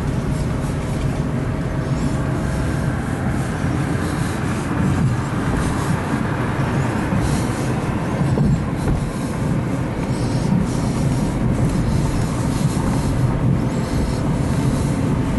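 Steady road and engine rumble inside the cabin of a moving Dodge Caravan minivan.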